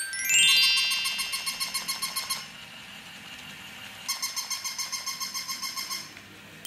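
Edited-in background music: a bright bell-like note repeated quickly in two short runs, opened by a fast falling glissando sweep.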